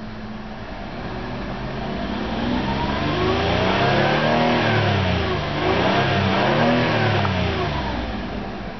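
2009 Ford Escape XLT's 3.0-litre Duratec 24-valve V6 revved twice from idle, heard from inside the cabin. Each rev climbs in pitch for a couple of seconds and falls back, the first peaking about four seconds in and the second just past six seconds.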